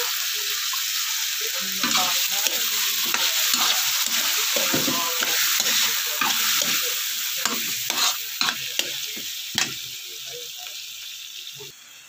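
Chicken pieces with garlic and onion frying in hot oil in a wok: a steady sizzle, with a spatula scraping and tapping against the pan. The sizzle dies down gradually over the last few seconds.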